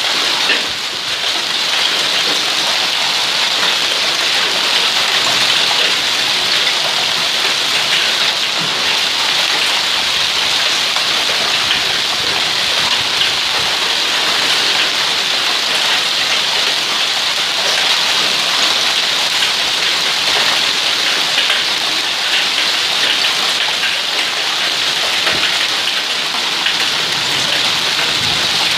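Heavy hail falling with rain: a steady, dense hiss of countless small ticks as hailstones pelt pool water, stone paving and foliage.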